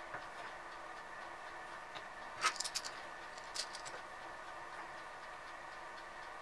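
Light metal clicks and taps as the halves of a metal die and a screw clamp are set in place over the cable end: a quick cluster about two and a half seconds in, the loudest, and a smaller one about a second later. A faint steady hum runs underneath.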